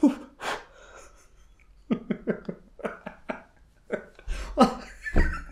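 A man blowing sharply on his fingertips twice, then laughing in short bursts, about three a second.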